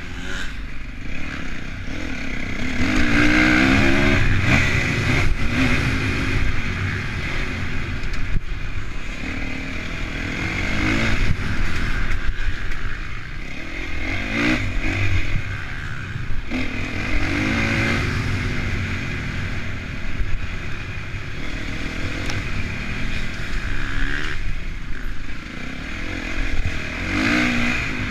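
Onboard sound of a Honda CRF450 motocross bike's single-cylinder four-stroke engine at race pace. The engine revs up and drops back again and again as the throttle is opened and closed.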